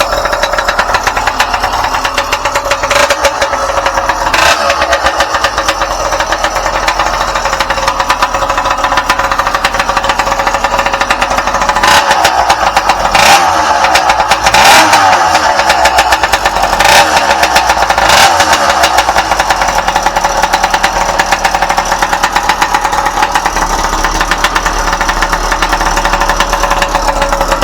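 Motorbike engine idling steadily, with a few throttle blips about halfway through that send the pitch up and back down, then settling back to idle.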